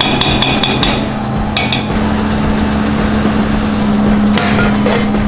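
Cotton candy machine running: a steady motor hum with a spinning whir. A high ringing tone sounds on and off in the first two seconds.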